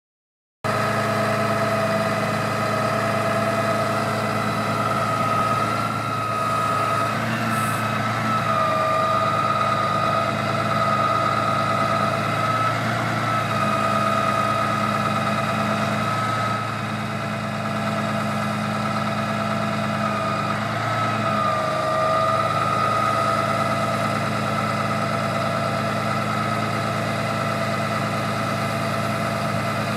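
Cummins 6.7L diesel of an Altec AT40-MH bucket truck running steadily, with a high whine from the boom's hydraulic system over it that dips briefly in pitch about three times.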